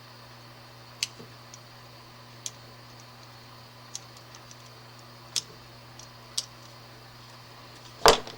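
Scattered small sharp clicks and ticks, about one every second or so, then one louder knock near the end, over a faint steady low hum: tools and an electrical cord being handled while the insulation is peeled off a wire.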